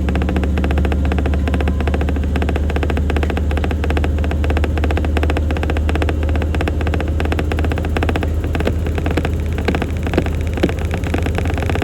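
Samsung Grande washing machine running its quick-wash cycle: a steady low hum with a fast, even pulsing from the turning drum, and a few knocks near the end.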